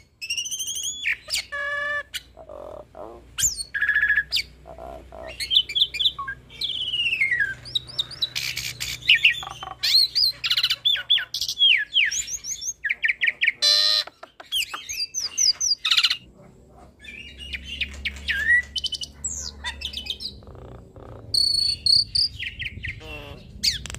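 Hybrid starling (jalak suren × jalak nias cross) in full song: a fast, varied run of slurred whistles rising and falling, rapid trills and harsh chattering notes, broken by short pauses.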